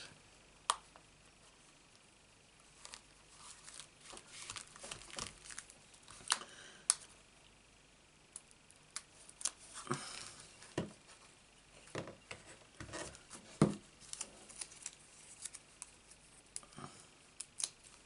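Paper and cardstock being handled: scattered light taps, clicks and short rustles as die-cut card pieces are pressed down and picked up, with one louder knock about three-quarters of the way in.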